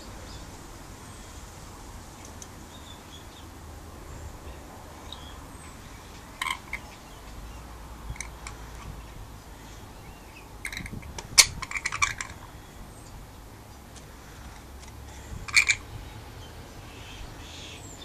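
Rainbow lorikeet giving short, high-pitched squawks: a single call, then a quick burst of several close together (the loudest), then one more call near the end.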